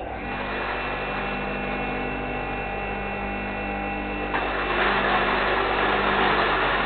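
Small electric grain mill switched on and running with a steady motor hum. About four seconds in it grows louder, with a rough grinding rush as grain from the hopper begins feeding into it.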